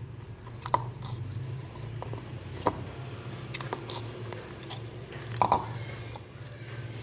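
Very soft slime being kneaded and squeezed by hand with pieces of foam mixed in: wet squishing with scattered sharp pops and clicks, the loudest a few seconds apart and a close pair near the end, over a steady low hum.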